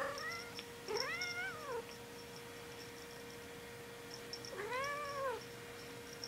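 Calico cat meowing: two long meows, each rising then falling in pitch, about a second in and again near five seconds, after the end of another call at the start.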